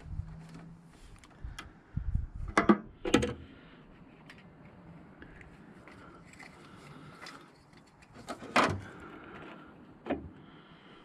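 Scattered clicks and knocks of hands handling small metal parts of a Nissan Micra's carburettor automatic choke, with the engine off. The loudest are two knocks a little under three seconds in, and another about eight and a half seconds in.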